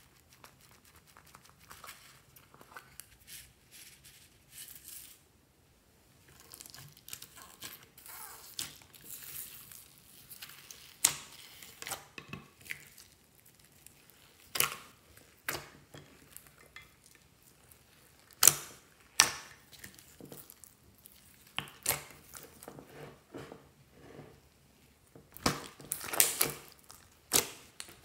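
Hands squeezing and kneading clear slime mixed with foam beads and pom-poms: sticky crackling and squelching with irregular sharp pops. The pops are sparse and faint at first and busiest near the end.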